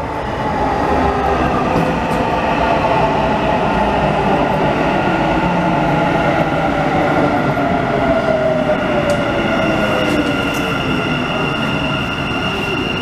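Dubai Metro train arriving at an elevated station and running past as it slows, a steady rumble under a whine that falls steadily in pitch.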